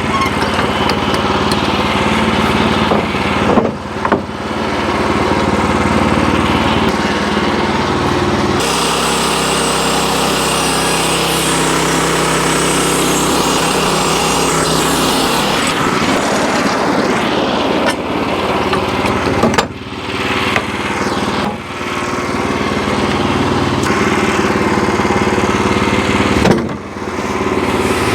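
Wood-Mizer LX25 portable sawmill running steadily while sawing a red oak log. Its engine note shifts about a third of the way in, and the sound dips briefly three times.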